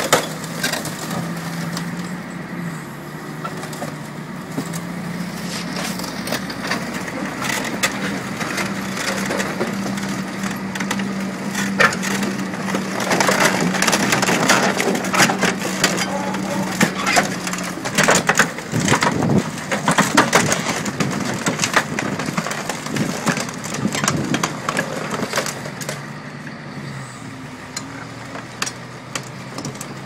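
A heavy tracked machine's steel crawler track rolling over a sedan and crushing it: many sharp cracks and crunches of the car body and glass giving way, over the steady hum of the machine's diesel engine. The crunching is densest and loudest from about twelve to twenty seconds in.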